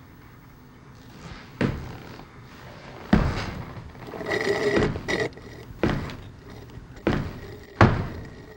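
Sharp thuds and knocks, about six of them a second or so apart, with a short rasping noise a little after the midpoint.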